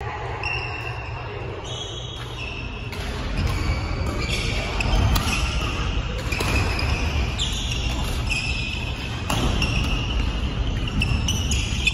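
Badminton rally: sharp racket strikes on the shuttlecock, several seconds apart, and short high squeaks of court shoes on the floor, over a steady low rumble of the hall.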